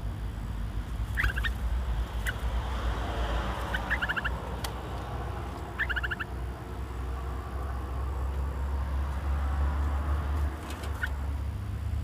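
Caged bulbuls giving short chattering calls, each a quick run of four or five notes, three times in the first half, with a few sharp clicks. A steady low rumble runs underneath.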